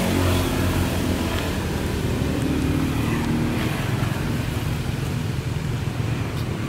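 A motor vehicle engine running close by, a steady low hum that shifts in pitch about two to three seconds in.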